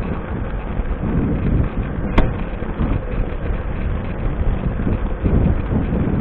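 Wind buffeting the action camera's microphone on a moving mountain bike, a steady low rumble. A single sharp click cuts through about two seconds in.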